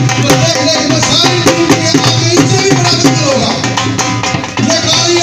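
Music with a steady drum beat over pitched instruments.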